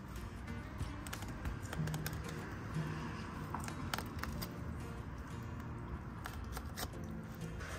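Light clicking and scraping of a flexible fillet knife slicing a flounder's top fillet off its thin rib bones, over quiet background music.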